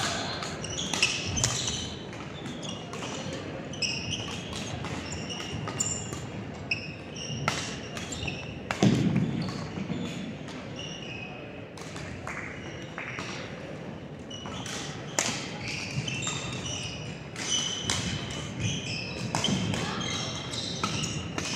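Doubles badminton play on an indoor court: irregular sharp racket hits on the shuttlecock among frequent short, high squeaks of shoes on the court floor. A heavier thump stands out about nine seconds in.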